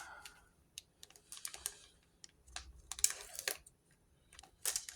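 Trading cards and their pack wrappers being handled: soft, irregular clicks and rustles in a few short clusters.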